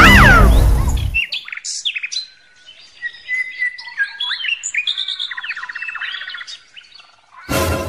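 Loud music cuts off about a second in. It is followed by birds chirping and trilling in many short, overlapping calls. Near the end comes a brief loud burst of noise.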